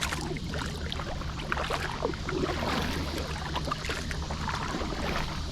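Water splashing and dripping around a kayak as it is paddled: many small irregular splashes over a steady low hum.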